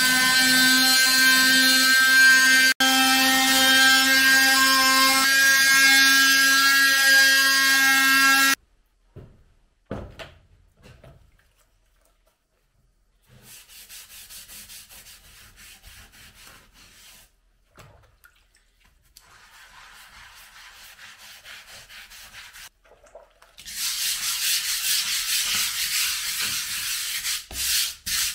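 Small electric hand sander running steadily on a concrete plate, stopping abruptly about eight seconds in. After a pause comes hand rubbing and scrubbing on the plate, faint at first and louder for the last few seconds.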